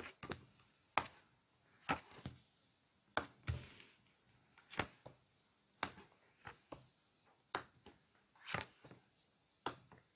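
Tarot cards being handled and laid down on a table: faint, short taps and slaps, irregular, about one a second.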